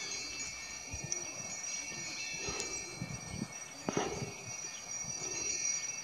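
Sleigh bells ringing steadily in a sustained jingle, with sharper strokes about two and a half and four seconds in.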